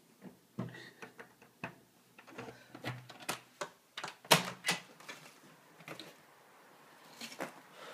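A glass-paned door being handled and opened: a run of sharp clicks and knocks, the loudest about four and a half seconds in.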